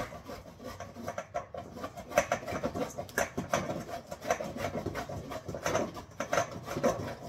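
Food being grated by hand on a metal grater: a run of short, repeated rasping strokes, about two to three a second.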